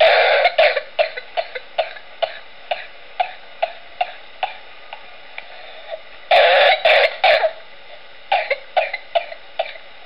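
A person coughing in a long series of short coughs, about two a second, with a louder run of three coughs midway and no whooping in-breath between them: a non-whooping cough. It plays over a steady hiss.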